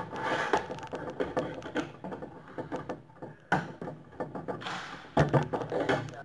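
Screwdriver and pliers tightening the screws and nuts of a metal projector ceiling-mount bracket: irregular clicks and scraping of metal on metal as the screws are turned, with a few louder clusters of clatter about three and a half and five seconds in.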